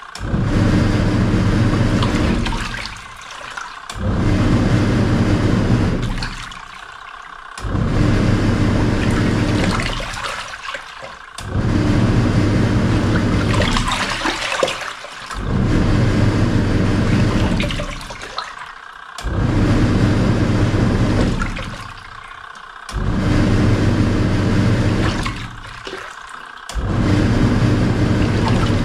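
Samsung SW-655P twin-tub washing machine on its wash cycle: the wash motor hums and the pulsator churns the water in bursts of about three seconds, each followed by a pause of about a second, repeating about seven times.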